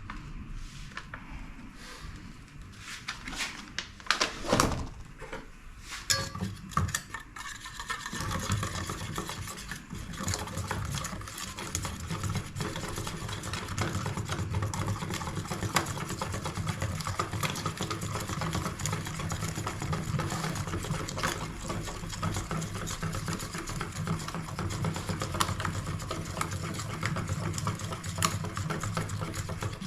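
A few knocks and clatters, then from about eight seconds in a small motor starts and runs with a steady low hum.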